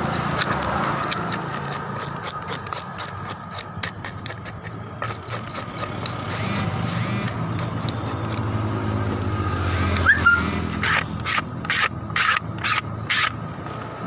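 Knife scraping scales off a fish on a wooden board: a run of quick rasping strokes, turning into sharper strokes about two a second near the end. A low steady hum runs underneath.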